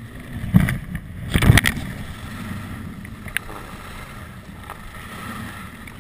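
Skis running over groomed snow, with wind rushing across the helmet camera's microphone. Louder scrapes come about half a second and a second and a half in.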